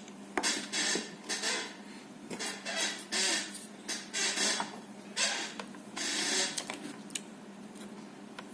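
Work on a radio circuit board while a faulty 5-volt regulator IC is desoldered: a string of short scraping or hissing bursts with a few light clicks and clinks, which stop about two-thirds of the way through.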